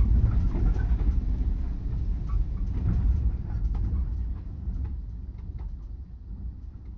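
A low, steady rumble with scattered sharp clicks and knocks, fading out gradually over several seconds.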